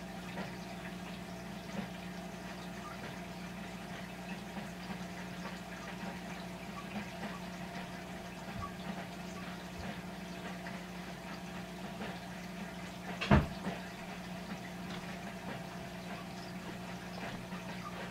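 Steady background hum with a low drone, and one sharp knock about thirteen seconds in.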